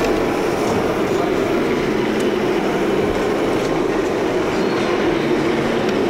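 Steady, even din of a crowded indoor exhibition hall, a dense rumble of many sources with no single sound standing out.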